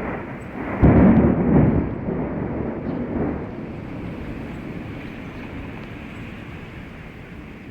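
A thunderclap about a second in, then rolling thunder rumbling and dying away over a few seconds, over a steady hiss of rain.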